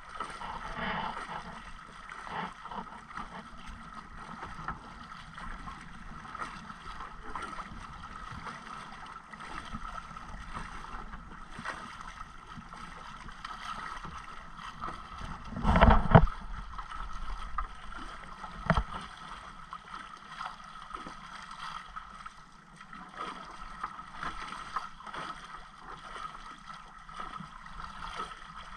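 Sea water splashing and lapping against a small outrigger boat while a fisherman hauls in a handline, over a steady hum. A loud knock or splash comes about halfway through, and a shorter one a few seconds later.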